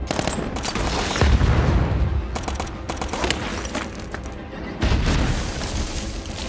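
Battle sound effects in a war film: volleys of rifle and machine-gun fire and explosions over a film score. Heavy booms come about a second in and again near five seconds.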